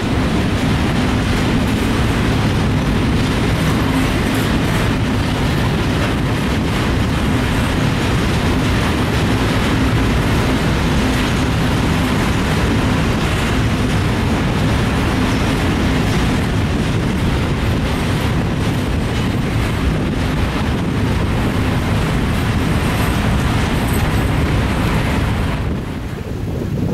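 Freight train of hopper wagons rolling past, a steady rumble of steel wheels on rail with faint clicks over the rail joints. The noise drops suddenly near the end.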